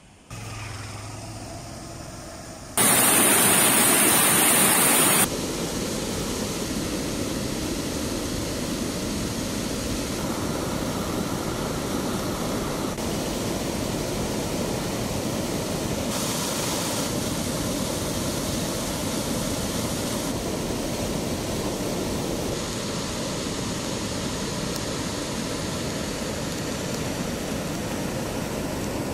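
Floodwater rushing steadily through a reservoir's open spillway gates and down a swollen stream, an even noise whose tone shifts a little every few seconds. About three seconds in, a much louder hiss lasts two or three seconds.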